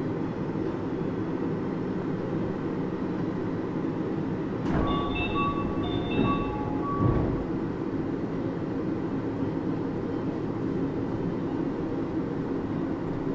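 Interior running noise of a Series 10 (Type-X) monorail car, a rubber-tyred straddle-beam train with Hitachi IGBT-VVVF traction, rumbling steadily on the move. About four and a half seconds in there is a sharp knock, then a short run of high beeping tones and a low thud.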